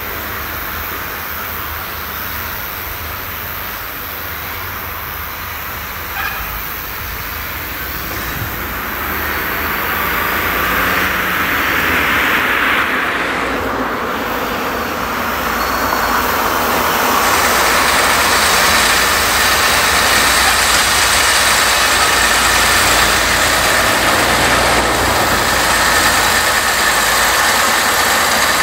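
Diesel tractor engines running as tractors and tipping trailers unload chopped maize at a silage clamp. A tractor comes close, and its engine gets louder and becomes the main sound from about 17 seconds in.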